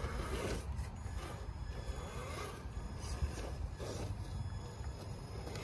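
Traxxas TRX-4 Bronco RC crawler's electric motor and gearbox whining at crawling speed, with its tyres scraping and scrubbing over rock, over a steady low rumble.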